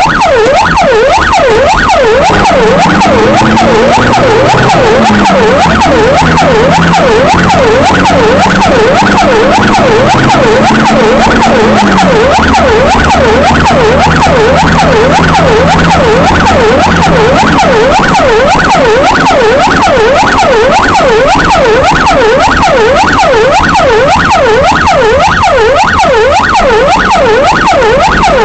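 Emergency vehicle's electronic siren on yelp, a quick, even rise-and-fall wail of about three sweeps a second, heard loudly from the vehicle itself. The vehicle's engine sounds underneath, its note shifting as the vehicle changes speed.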